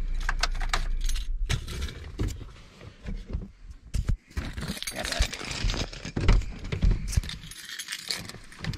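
A Jeep's engine idling, switched off about one and a half seconds in. Then a bunch of car keys jangling and clicking as they are handled at the ignition.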